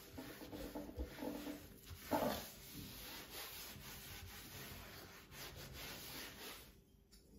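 Faint rubbing and scraping of a spoon against the inside of a hollowed-out watermelon rind, with a louder scrape about two seconds in.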